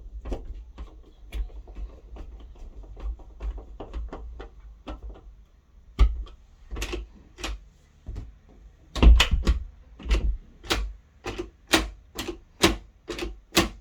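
Screwdriver driving screws into a bathroom door lock's fittings, making a run of sharp clicks. The clicks are faint and quick at first, then from about six seconds in they come louder and evenly, about two a second.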